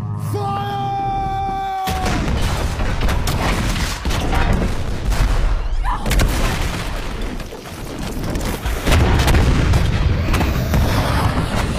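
A barrage of ship's cannons firing, heavy booms and crashes piling on one another from about two seconds in, after a long held tone in the first two seconds.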